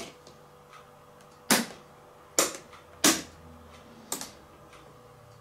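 Four sharp clacks about a second apart from an OO gauge model railway layout during shunting.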